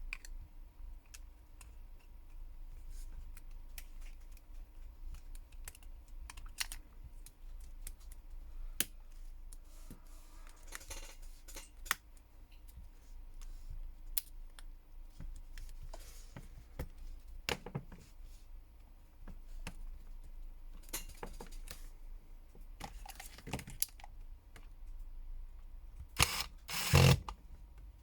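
Scattered light clicks and taps of a smartphone's small parts and tools being handled during reassembly, with a few louder clatters near the end.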